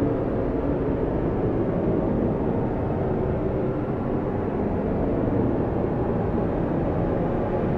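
Strong blizzard wind blowing steadily, a dense low rush with no gusts or breaks.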